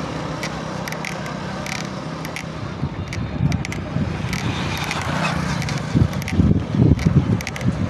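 Road and wind noise while riding along a paved road: a low rumble with gusts buffeting the microphone, strongest about six to seven and a half seconds in, and scattered light clicks and rattles.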